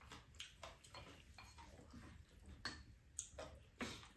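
Spoons lightly clicking and tapping against bowls and a pan while eating: a few scattered small ticks, the clearest in the second half.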